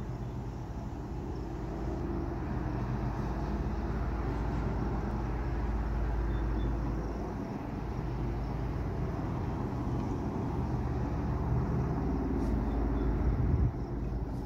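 A formation of airplanes passing overhead: a steady low drone of several aircraft engines, swelling slightly shortly before the end.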